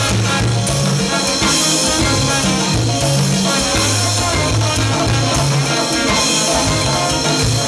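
Salsa band playing live, with a bouncing bass line under horns and percussion.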